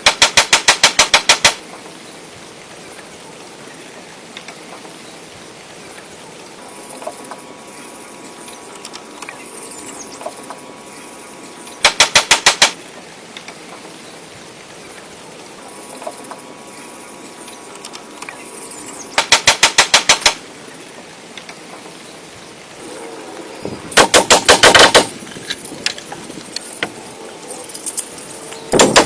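A woodworking power tool hammering in short bursts of rapid impacts, about ten a second, each burst lasting about a second; four bursts with pauses between them.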